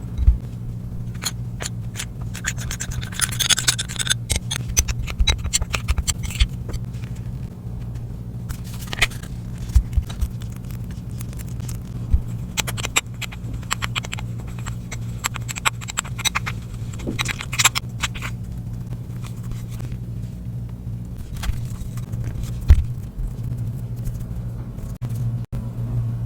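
Butter slime ingredients being stirred and scraped with a utensil, with irregular scraping strokes and sharp clicks in two bouts, over a steady low hum.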